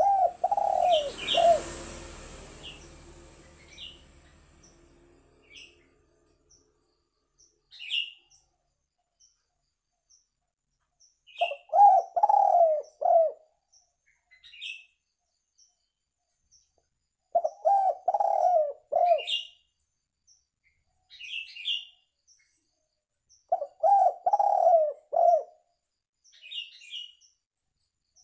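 Spotted dove cooing: a three- to four-note phrase repeated about every six seconds, with small birds chirping high and short between the phrases. A rushing noise at the start fades away over a few seconds.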